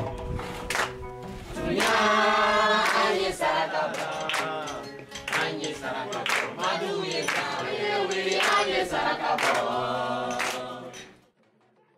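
A group of voices singing together over steady hand clapping, with an acoustic guitar in the mix. The song breaks off about a second before the end.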